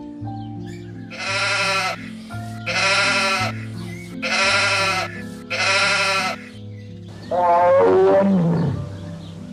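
An animal bleating four times, each bleat about a second long with a wavering pitch, over background music with sustained low notes. About seven seconds in, a louder, different call slides down in pitch.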